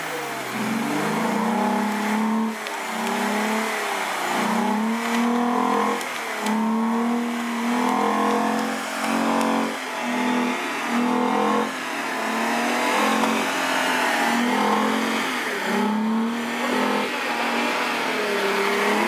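Volkswagen VR6 engine revved hard in a burnout, its pitch rising and falling again and again about once a second as the front tyre spins on the pavement.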